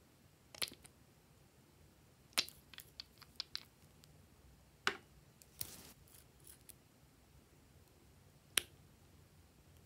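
Scattered sharp clicks and taps of small glass nail polish bottles and their brush caps being handled, with a quick run of clicks about three seconds in and a brief rustle near six seconds.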